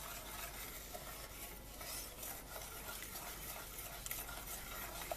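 A wooden spoon stirring and scraping through hot brown butter and cinnamon sugar in a stainless steel saucepan, with a faint sizzle from the butter, as the sugar dissolves into a caramel-like sauce.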